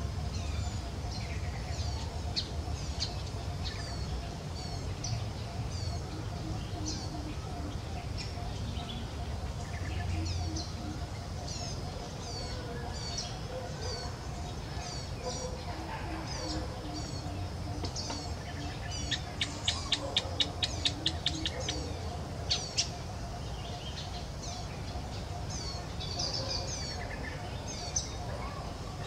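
Birds chirping: short, falling chirps repeated throughout, with a quick run of about a dozen sharper, louder notes around two-thirds of the way through, over a low steady rumble.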